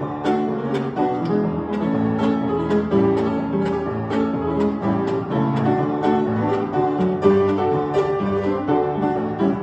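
Fiddle and piano playing an instrumental break in a Southern gospel song: held bowed fiddle notes over rhythmic piano chords.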